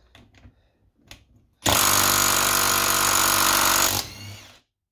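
Bosch cordless impact driver with a socket on an extension, hammering at a 12 mm cylinder-head bolt for about two seconds before its motor winds down with a falling whine.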